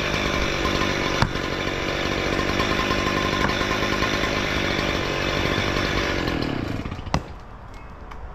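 Gas-powered concrete cut-off saw running steadily, then winding down and stopping about seven seconds in, followed by a sharp knock.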